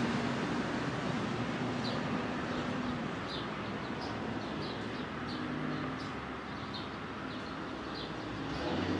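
Small birds chirping in short, high calls about twice a second over a steady low outdoor hum.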